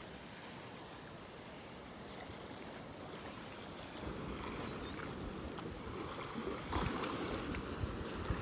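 Small waves washing onto the sand at the water's edge, a steady hiss of gentle surf that grows louder about halfway through. Wind gusts now and then on the microphone.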